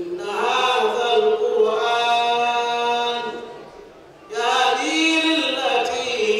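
A man's voice chanting Qur'anic recitation in two long melodic phrases with drawn-out held notes, with a brief pause about four seconds in.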